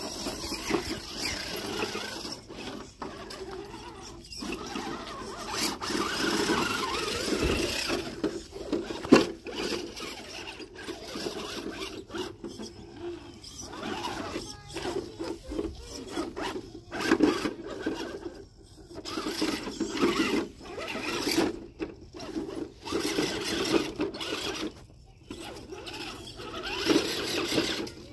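Electric motor and gear drivetrain of a radio-controlled off-road truck whirring as it crawls over rocks, stopping and starting many times.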